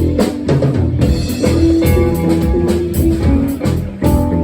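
Live band playing an instrumental passage: drum kit keeping a steady beat under guitar and bass.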